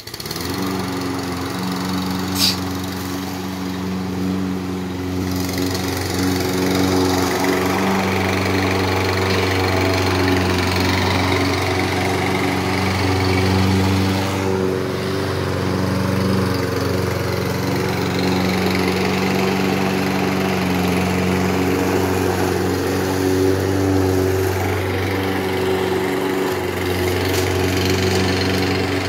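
Craftsman walk-behind push mower's small single-cylinder engine running steadily under load while cutting grass. A brief sharp high sound cuts through it about two seconds in.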